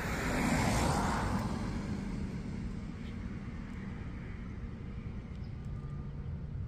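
A car passing on the road beside the camera: its tyre and engine noise swells to a peak about a second in and fades away, over a steady low rumble.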